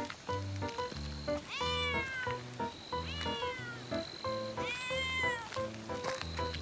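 A cat meowing three times, each meow a drawn-out call that arches up and falls in pitch, over background music with a steady bass pattern.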